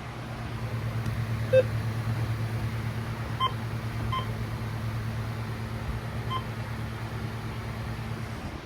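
Steady low hum of dead air on a weather radio feed, with a few short faint beeps through it; the hum cuts off suddenly near the end.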